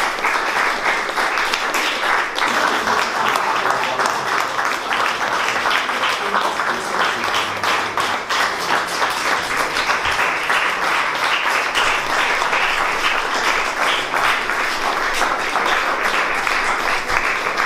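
Audience and performers applauding: many hands clapping in a dense, steady patter.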